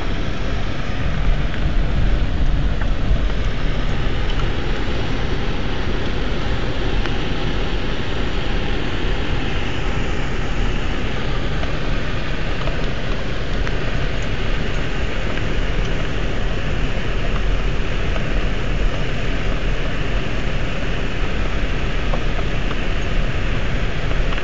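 Road noise inside a car driving on an unpaved dirt road: a steady low rumble of the engine and the tyres on the rough surface.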